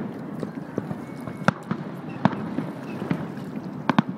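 Fireworks display heard from a distance: a handful of sharp bangs from shells bursting, the loudest about one and a half seconds in and two close together near the end, over a steady background noise.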